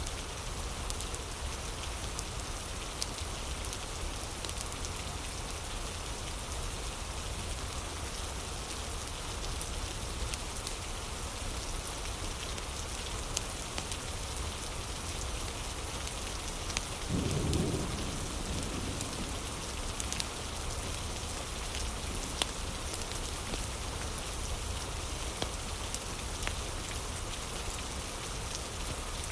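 Steady rain falling, with scattered sharp crackles and a brief low rumble of thunder about seventeen seconds in.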